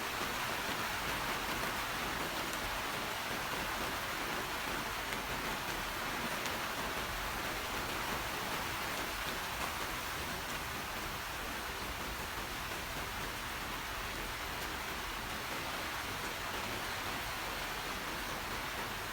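Steady rain falling, an even hiss that eases slightly over the span.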